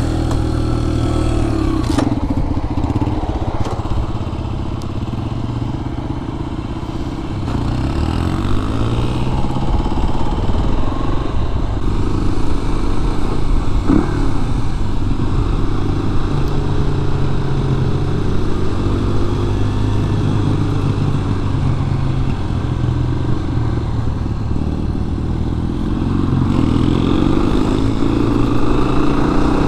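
A 1998 Kawasaki KLR 250's single-cylinder four-stroke engine, heard from on the bike, pulling away from a stop and riding on, its revs rising and falling with the throttle and a rising pitch near the end as it accelerates.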